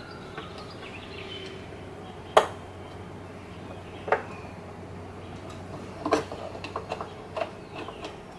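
Sharp clicks and knocks of a screw and tools being handled while mounting a plastic carburetor on a mower engine: the loudest about two seconds in, another around four seconds, then a run of lighter taps in the last two seconds, over a steady low hum.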